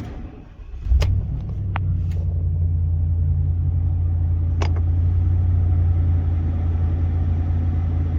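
Service truck engine starting about a second in and settling into a steady idle, with a few sharp clicks over the running engine.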